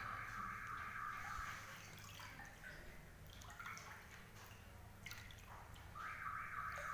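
Floodwater dripping and trickling faintly, with scattered small drips over a low steady hum. A steady hiss of water fades about two seconds in and comes back near the end.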